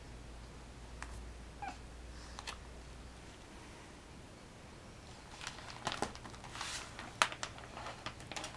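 A plastic sheet crinkling and crackling in a cluster of sharp crackles over the last three seconds as a baby grabs at it. A baby's faint squeak comes about one and a half seconds in.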